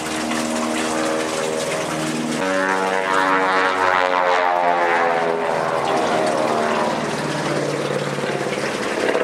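Twin-radial-engine Beechcraft Model 18 flying an aerobatic display, its propeller drone growing louder about two and a half seconds in, then its pitch sliding down as it passes.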